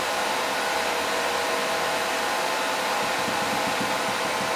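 HP ProLiant ML350 G5 server's cooling fans running during its first boot: a loud, steady whoosh of air with a few faint steady tones.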